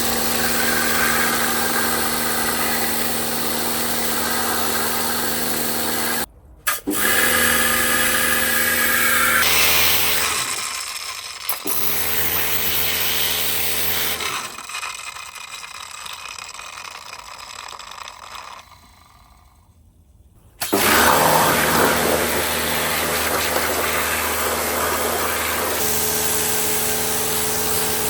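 An electric motor running with a steady hum. It cuts off sharply about six seconds in and restarts, runs more quietly and almost stops for a few seconds in the second half, then starts again at full speed.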